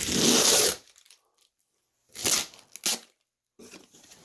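Packaging being torn open and handled: a loud ripping tear lasting under a second at the start, a shorter crackling rustle about two seconds in, then softer rustling near the end.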